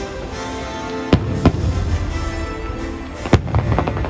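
Fireworks going off over the show's music: a sharp bang about a second in and another just after, then the loudest bang a little past three seconds, followed by a quick run of crackles.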